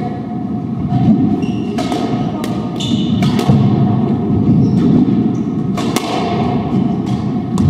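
Squash ball cracking off rackets and the court walls in a doubles rally: a string of sharp hits at irregular intervals. Court shoes squeak briefly on the wooden floor between the hits.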